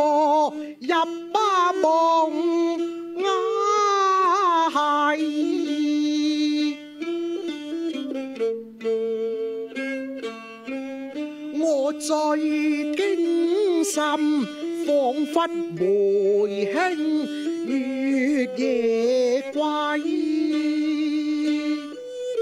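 A man singing Cantonese opera (粵曲) in a slow line that wavers and glides in pitch, accompanied by his own plucked ruan and a bowed Chinese fiddle.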